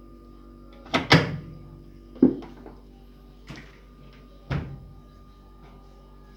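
Several sharp clacks and knocks from a Samsung single-tub top-loading washing machine's lid and parts being handled. The loudest are two in quick succession about a second in, then three more spaced a second or so apart, all over a steady low hum.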